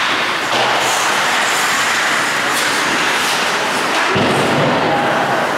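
Steady noise of an ice hockey game in progress: skate blades scraping across the ice, with a few faint knocks of sticks and puck.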